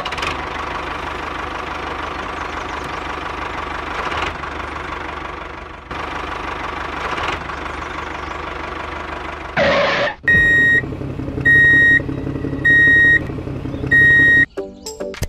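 Walking-tractor engine running steadily. Near ten seconds a short loud blast, then four reversing beeps about a second apart while the engine runs on.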